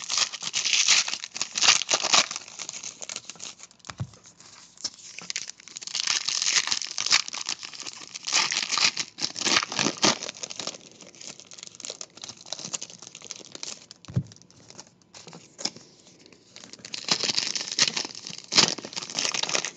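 2018 Diamond Kings hobby pack wrappers crinkling and tearing open, in several bursts of rustling with quieter gaps between.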